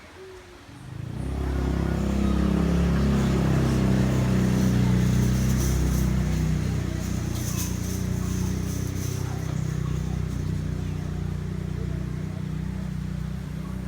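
An engine running close by, coming in suddenly about a second in and then holding a steady low drone.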